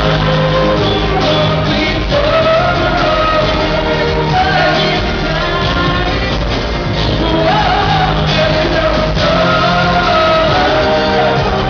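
Live pop song played loud in an arena: a full band with a male voice singing a sustained melody.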